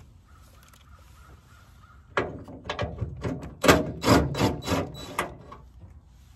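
Cordless power driver run in short trigger bursts, backing out the 12 mm trunk-lid hinge bolts. It makes a string of sharp rattling bursts starting about two seconds in and lasting about three seconds.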